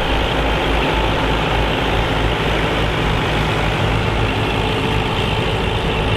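Massey Ferguson 65 tandem tractor engine running steadily.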